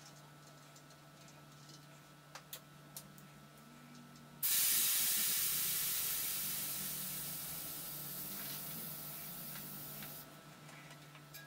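Air hissing out of a bicycle tyre's valve as the tyre is let down: a few faint clicks at the valve, then a sudden loud hiss that fades slowly as the pressure drops and stops abruptly after about six seconds.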